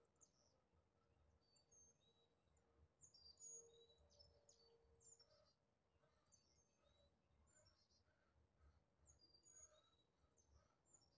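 Near silence with faint birds chirping: short, high chirps repeated every second or so.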